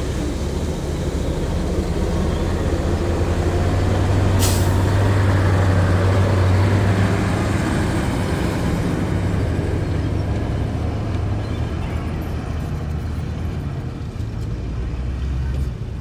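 Heavy diesel earthmoving machinery running, a deep steady engine note that swells louder about four seconds in and eases off again after about seven seconds. A short, sharp hiss of air cuts in about four seconds in.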